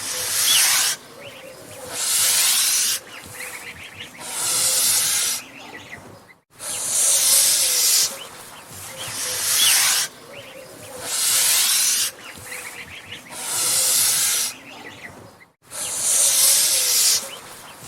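Angry goose hissing: a run of loud, breathy hisses about a second long, one every second and a half to two seconds. The hissing is the goose's threat display.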